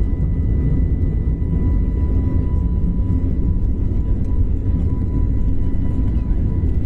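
Steady low rumble of a jet airliner's cabin as it rolls along a wet runway, its engines running, heard from a window seat.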